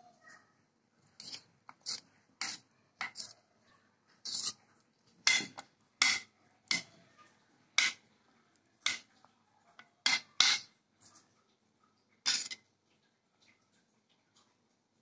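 Metal spoon scraping and clinking against the side of a bowl as a chopped vegetable salad is tossed: about fourteen irregular strokes.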